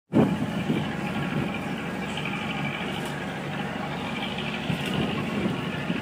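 A tour boat's engine running steadily, heard from the open deck, with water and wind noise mixed in.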